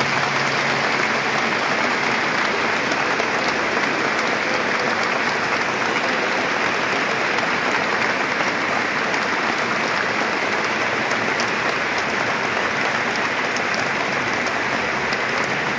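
Large stadium crowd applauding steadily, a dense wash of clapping. The last low orchestral notes die away in the first second.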